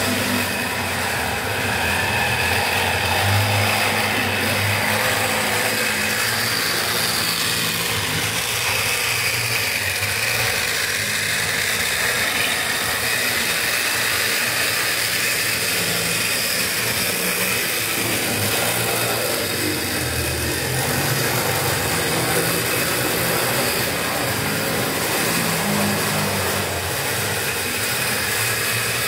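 Model BB 305 CFD locomotive running steadily around the model railway layout, a continuous even mechanical whir at a constant level.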